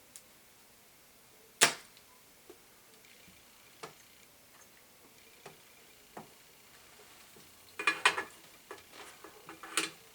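Clicks and taps of desoldering work at a bench: one sharp snap about one and a half seconds in, like a spring-loaded solder sucker firing, a few faint ticks, then a quick cluster of clicks and rattles near the end.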